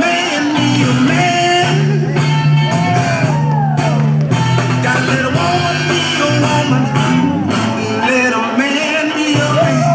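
Loud music with a sung melody over a steady bass line, played for breakdancers battling.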